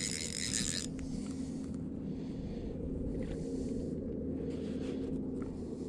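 A motor running steadily with a low, even hum. A brief rattle comes in the first second.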